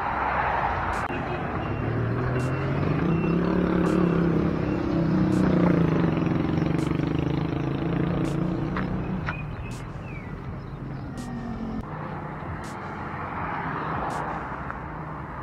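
A motor vehicle passing close by on the road: its engine grows louder over the first few seconds, is loudest around the middle, and fades away about ten seconds in, leaving quieter road and outdoor noise.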